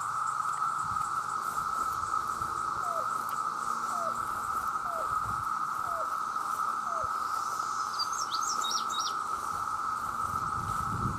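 Steady drone of a mass cicada chorus, males calling together. Midway through, five short falling notes about a second apart cut through the drone, and later a few quick high chirps.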